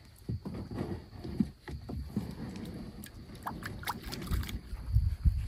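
Scattered knocks, clicks and low thumps of a person stepping from the bank into a skin-on-frame canoe and moving about in it, with a few heavier thumps near the end.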